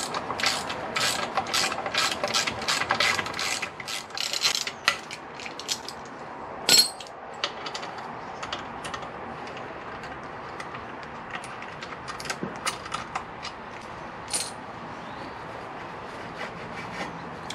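Ratchet wrench clicking rapidly as the bolts on a motorcycle's exhaust can bracket are backed out. Sparser metal clinks follow, with a sharper knock about seven seconds in, as the silencer is worked loose.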